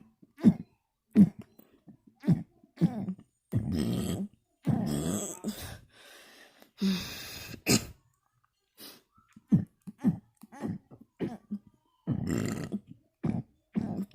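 A person burping with the mouth closed, one short burp after another at about one or two a second, with a few longer, drawn-out ones among them.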